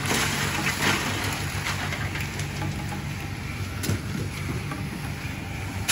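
Sand-frying drum for crackers running over a wood fire: a steady low hum with a rain-like hiss of hot sand, and a few light knocks and scrapes as a metal sieve scoops crackers out.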